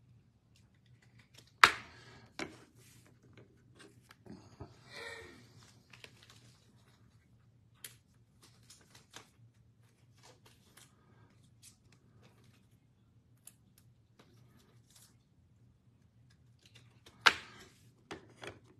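Scattered light clicks and taps of trading cards being handled and set up on plastic Lego stands, with two sharp clacks, one about a second and a half in and one near the end.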